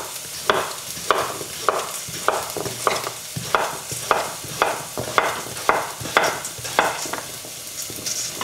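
Chef's knife slicing raw butternut squash on a wooden cutting board, about two cuts a second, with the cutting stopping near the end. Underneath, shallots sizzle gently as they fry in olive oil.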